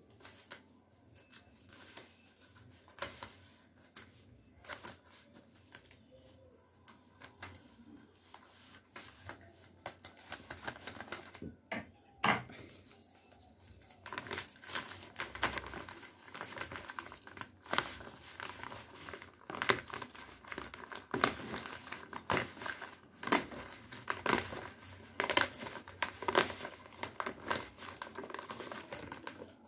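Plastic courier mailer bag being torn open and handled, with crinkling plastic and scattered sharp crackles that get busier in the second half.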